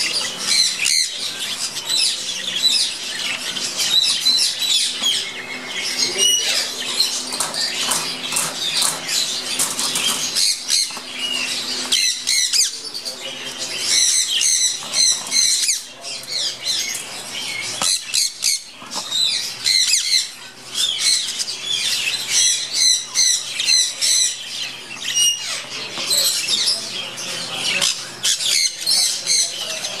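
A flock of budgerigars chattering: a dense, unbroken run of short high chirps and warbles, with wings flapping now and then.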